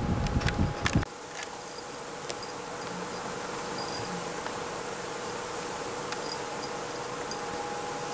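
Steady hiss of room tone with a faint steady hum. For about the first second there is low rumbling with a few sharp clicks, which cuts off suddenly.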